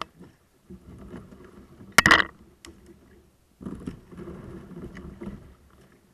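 Kayak paddling: two spells of paddle strokes splashing and swishing in the water, with a loud sharp knock about two seconds in.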